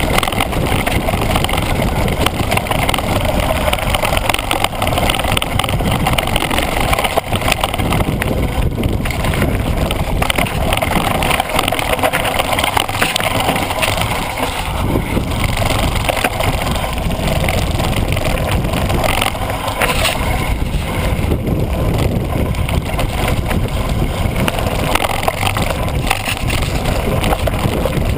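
Mountain bike descending a dirt and gravel trail: tyres crunching over loose stones, the bike rattling over bumps with many small knocks, and wind rushing over the action-camera microphone.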